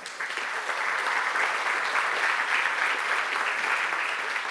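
Audience applauding, swelling in the first moments and then holding steady.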